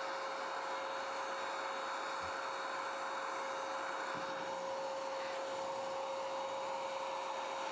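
Cordless electric paint sprayer (DEKO DKSG20K2) running steadily, spraying thinned paint, a constant motor hum with a high whine over the hiss of the spray.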